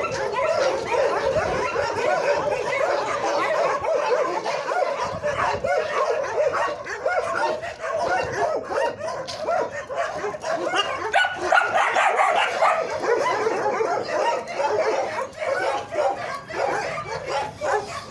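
Many dogs barking at once, a dense, unbroken chorus of overlapping barks.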